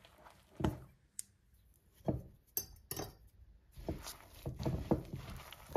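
Hands mixing and kneading sticky brioche dough in a glass bowl: irregular soft wet slaps and squishes, with the dough and hands knocking against the glass. The strokes come sparsely at first and closer together in the last two seconds.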